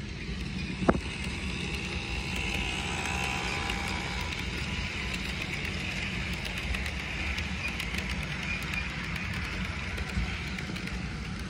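Toy model train running on plastic track: a steady motor whir with the wheels clicking over the track as the freight cars pass. There is a sharp knock about a second in.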